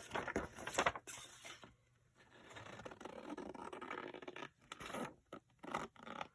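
Scissors cutting through paper: a long, steady cut in the middle, with short rustles and clicks of paper being handled around it.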